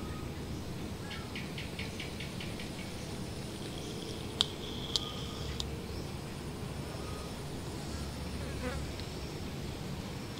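Insects chirping over a steady low background rumble, with a quick run of short chirps about a second in. Two sharp clicks near the middle are the loudest sounds.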